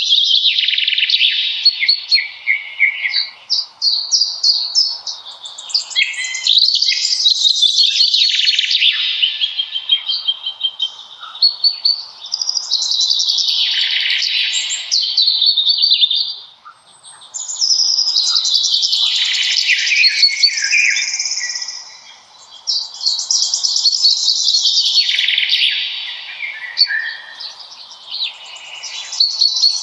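Songbirds singing in a forest, long trilling phrases that fall in pitch, a new phrase about every five or six seconds.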